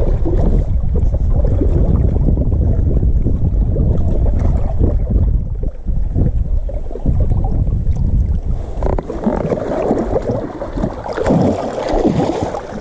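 Wind rumbling on the microphone over lapping water, then from about nine seconds in, splashing as a hooked northern pike thrashes at the surface beside the inflatable boat.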